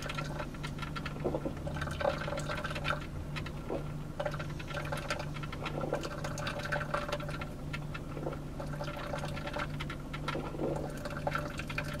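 Black & Decker single-serve drip coffee maker brewing: irregular gurgling and crackling as the water is heated and runs into the cup, over a steady low hum.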